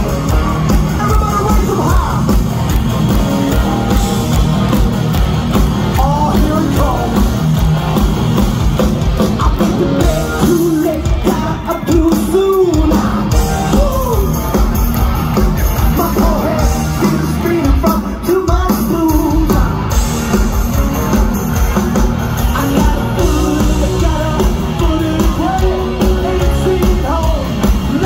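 Hard-rock band playing live at full volume, drums, bass and guitars under a male lead singer's strained, shouted vocal.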